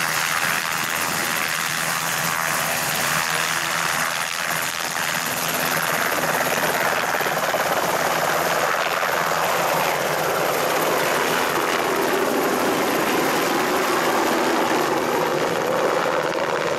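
Small helicopter running with its main rotor turning, then lifting off and climbing away near the end. Its pitch slides down in the middle part.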